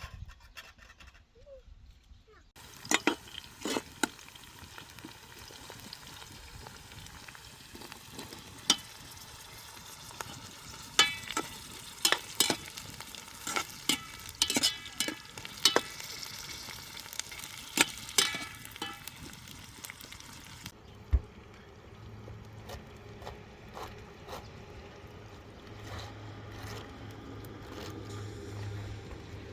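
Food sizzling as it fries in a pan, with a utensil stirring it and knocking and scraping against the pan in sharp clicks. The sizzle starts about two and a half seconds in and drops abruptly to a quieter, duller hiss about two-thirds of the way through.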